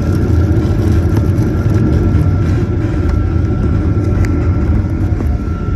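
Boeing 737-900ER's CFM56 jet engines running, heard inside the cabin as a steady, loud low rumble with a faint steady whine above it.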